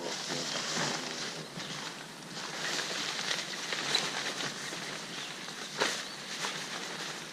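Nylon tent fabric rustling and scraping as a pop-up hub tent is handled during takedown, with a sharp click from the frame about six seconds in.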